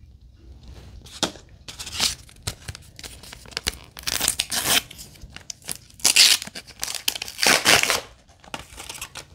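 Plastic toy packaging being handled and torn open: crinkling and tearing in several bursts, loudest in the second half, with light clicks of plastic pieces in between.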